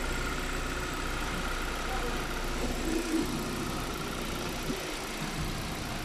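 Hyundai Accent engine idling steadily with the A/C compressor engaged, the freshly repaired system now blowing cold.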